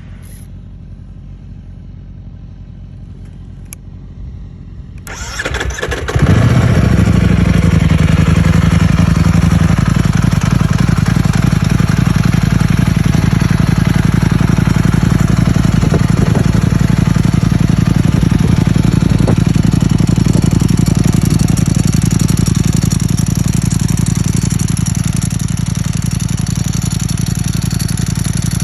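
2021 Ducati Streetfighter V4 S's V4 engine, fitted with a dry clutch, being started: the starter cranks about five seconds in and the engine catches, then idles steadily, a little quieter near the end.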